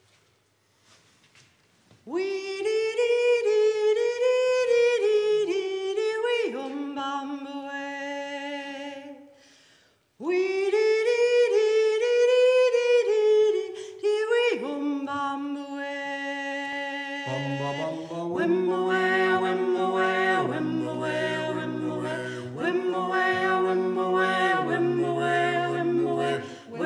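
A woman's voice sings unaccompanied, two phrases each ending on a lower held note. About 17 seconds in the rest of the barbershop quartet joins, singing close four-part a cappella harmony over a low bass line.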